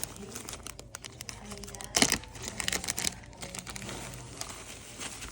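Plastic shrink-wrap packaging crinkling and tearing as it is unwrapped by hand, with one louder rip about two seconds in.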